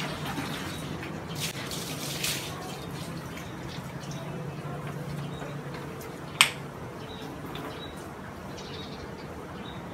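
Faint running and dripping water from a garden hose laid in a bucket, with one sharp click about six and a half seconds in.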